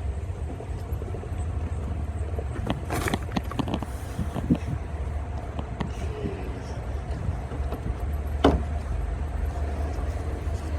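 Packaging rustling and clicking as items are pulled from a gift box, with a cluster of rustles about three seconds in and a sharp click near the end, over a steady low rumble.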